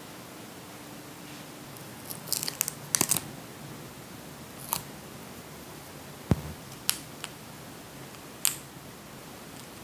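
Tiny plastic miniature pieces clicking and tapping as they are handled: a quick cluster of clicks a couple of seconds in, then a few single clicks and one duller knock, over a faint steady hiss.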